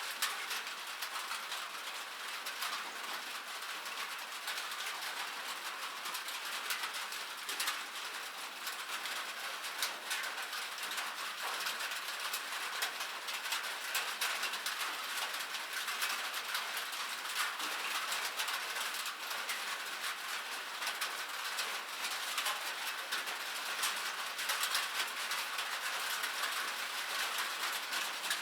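Rain falling on a metal surface: a steady hiss thick with many small, sharp drop ticks, with no low rumble.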